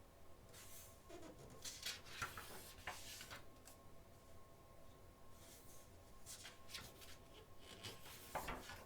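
Magazine pages being turned and handled: paper rustling and swishing in several short bursts, busiest about two seconds in and again near the end.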